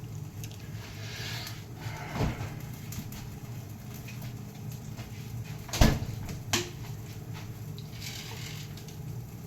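A few knocks and clatters of kitchen items being handled, the loudest about six seconds in, over a steady low hum.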